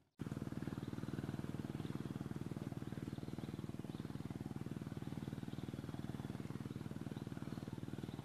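A small engine running steadily at an even speed: a low, fast-pulsing hum. It cuts in abruptly right at the start.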